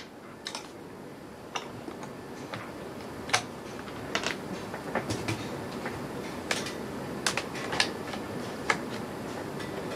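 About a dozen irregular light clicks and taps as a plastic quadcopter and its USB cable are handled on a desk.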